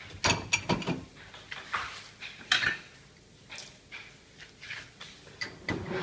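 Drinking glasses being set into a dishwasher's upper wire rack: a run of sharp clinks and rattles of glass against the rack, loudest in the first three seconds, then lighter ticks.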